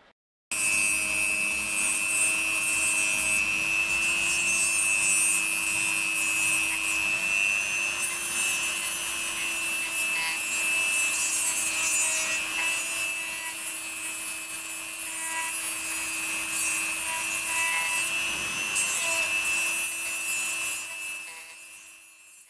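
HILDA JD3321C rotary tool running with a sanding disc pressed against a workpiece: a steady motor whine over a rough abrasive hiss. It starts suddenly about half a second in and dies away near the end.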